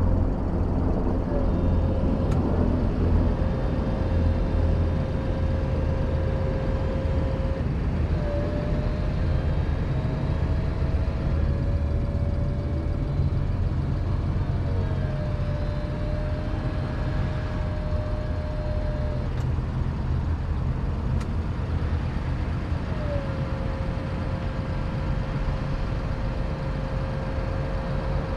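Daihatsu Copen Cero's power-operated Active Top hard roof retracting: a motor whine that runs in several stretches of a few seconds, each beginning with a short rise in pitch, with brief pauses and a few sharp clicks of latches between stages, over a steady low rumble.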